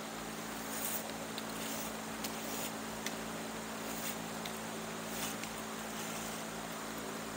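A strand of chair cane being drawn through a hand-woven cane seat, with several brief, faint scratchy rasps as the cane slides against the woven strands, over a steady hum and hiss.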